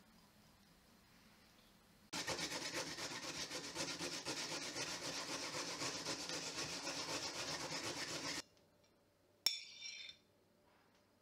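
Raw beetroot grated on a stainless steel box grater, a steady rasping made of quick, even strokes that runs for about six seconds and stops suddenly. Near the end comes one sharp clink and a short scrape as grated beetroot is tipped from a plate into a metal mesh sieve.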